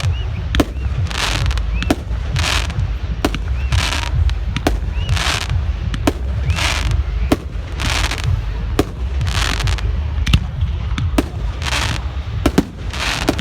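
Fireworks going off in rapid succession: sharp bangs throughout, with a hazy crackling burst about every 0.7 s, over a steady low rumble.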